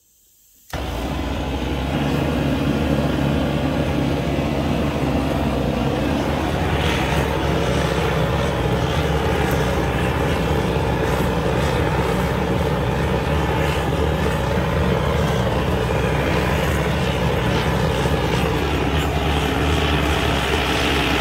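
An engine idling steadily with a low hum, coming in suddenly under a second in and holding an even pitch throughout.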